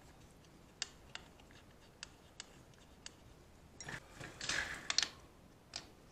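Faint, scattered small metal clicks as the sprocket cover bolts are threaded in by hand. About four seconds in comes a short rustle and clatter as a socket ratchet on an extension is picked up and fitted to a bolt.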